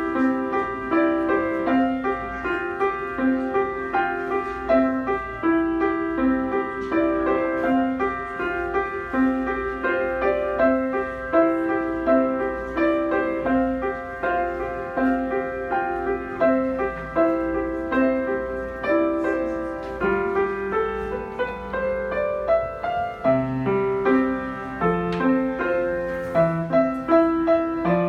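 Solo piano playing a pop-song arrangement, with a melody over a repeating broken-chord accompaniment.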